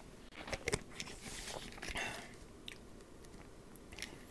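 Faint mouth sounds of a swig of Prime drink taken from a plastic bottle: wet lip clicks and swallowing, with a soft breathy rush about a second in.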